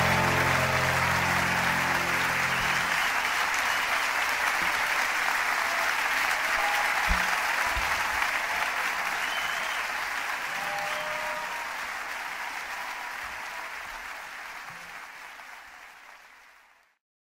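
Large theatre audience applauding at the end of a song, while the band's final chord rings out under it for the first three seconds. The applause slowly fades and is gone just before the end.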